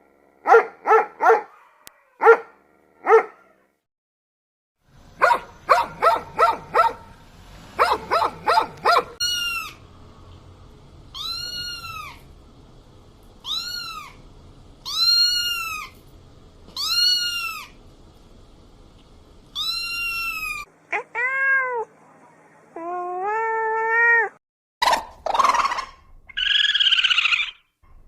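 A sequence of animal calls, one kind after another. First come short sharp barks and then a fast run of yelps. These are followed by about seven long arched calls, then rising calls and harsher cries near the end.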